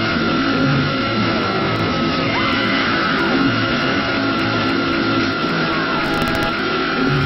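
Dense, continuous haunted-house music or soundscape: a long held high tone that slides down and back up a couple of times, over layered low droning tones, with no breaks.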